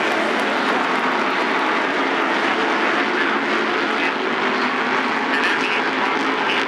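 Several SK modified race cars running at racing speed, their engines blending into one steady drone.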